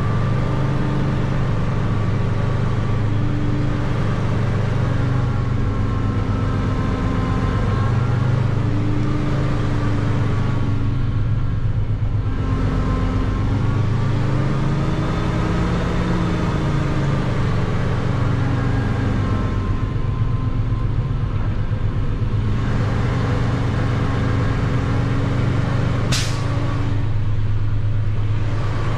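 Truck engine running steadily, its pitch rising and falling a little as the truck is maneuvered at low speed. One sharp click near the end.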